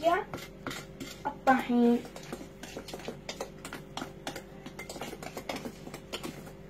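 Plastic spatula stirring thick cake batter in a metal mixing bowl, knocking and scraping against the bowl in quick, irregular clicks.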